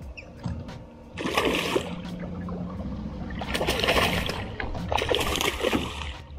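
A hooked spotted seatrout splashing and thrashing at the water's surface beside the boat while being played on the line, in three splashy bursts.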